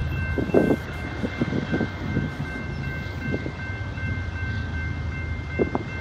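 Railroad grade-crossing bell ringing in a steady repeating pattern as the crossing gates come down, over a low steady rumble with a few soft thumps of wind on the microphone.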